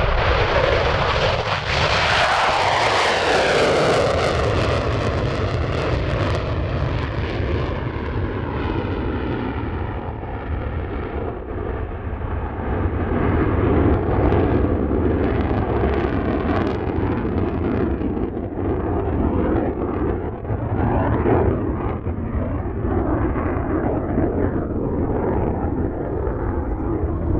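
The twin General Electric F414 turbofans of a Boeing EA-18G Growler on full afterburner, lifting off from a touch-and-go and climbing away. A sweeping, falling tone runs through the jet noise in the first few seconds as it passes, then the noise goes on steadily as it climbs.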